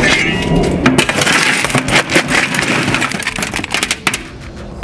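Steel shovel scraping into a wheelbarrow load of broken concrete chunks, the rubble clattering and grinding as it is scooped up, easing off in the last second.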